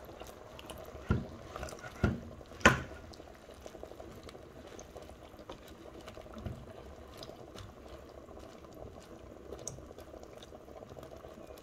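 A spoon stirring diced eggplant into simmering tomato sauce in a metal pot, knocking against the pot three times in the first three seconds, over the steady sound of the liquid cooking.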